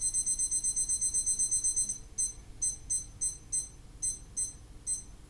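Small digital kitchen timer beeping as its buttons are pressed to set it to half an hour. A fast run of high beeps, about eight a second, stops about two seconds in, followed by about eight separate beeps, one per press.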